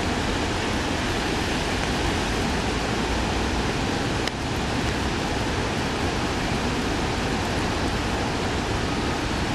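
Steady rushing of a flooded creek's floodwater, a continuous even roar with no let-up. There is one brief click about four seconds in.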